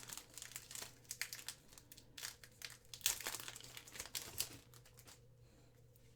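Plastic foil wrapper of a Panini Donruss football card pack crinkling and tearing as it is handled, dense crackles that stop about five seconds in.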